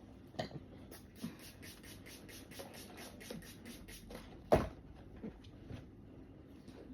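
A package being handled and scratched at: a run of quick scratching strokes, about eight a second, among scattered knocks, with the loudest knock about four and a half seconds in.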